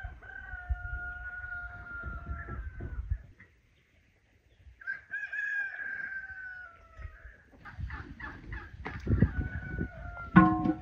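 A rooster crows twice, each a long held call, the second sliding slightly down at the end. Near the end come knocks and a loud metal clank with a brief ringing tone as a large metal cooking pot is set down on an iron stand over the fire.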